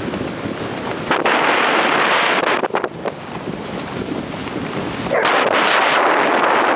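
Four Siberian huskies running on leads over sand, heard under loud rushing noise from wind and movement on a handheld microphone, which comes in two long stretches.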